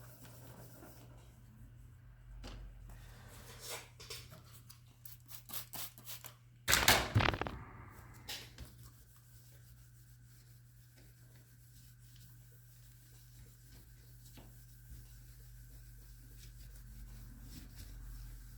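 Scraping, rubbing and small clicks of hands cleaning and handling a motorcycle instrument cluster, with one loud short rush of noise about seven seconds in, then quieter handling over a faint steady high hum.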